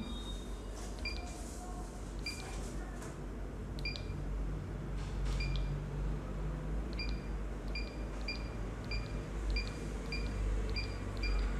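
Front-panel buttons of a Vertiv ITA2 6 kVA online UPS beeping with each press as the settings password is keyed in. There are a few spaced beeps with soft button clicks, then a quick run of beeps about three a second in the second half, over a low steady hum.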